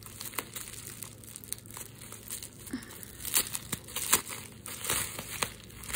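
Plastic bubble wrap crinkling and crackling as it is pulled apart by hand, with a few louder crackles in the second half.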